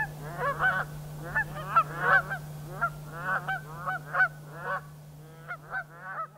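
A flock of geese honking: many short overlapping calls, several a second, growing fainter near the end, over a steady low hum.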